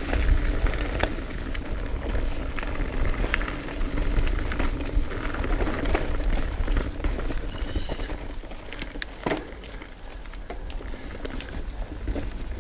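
Mountain bike riding over a trail: a continuous low rumble and hiss from the tyres, with scattered clicks and rattles from the bike. It gets quieter in the last few seconds.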